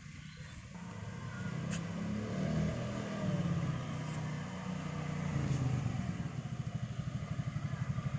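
Lambretta LN 150 automatic scooter's engine running as it is ridden up, getting louder as it comes closer, with a few rises and falls in revs. Near the end it settles into an even, pulsing idle as the scooter stops.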